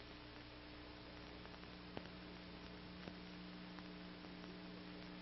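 Faint steady electrical hum with a low hiss and a couple of faint ticks: the background noise of an old recording's soundtrack between narration lines.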